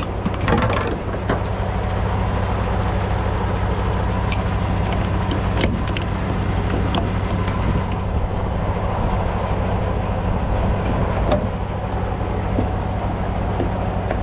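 Diesel semi-truck engine idling with a steady low drone, with a few light clicks about six and eleven seconds in.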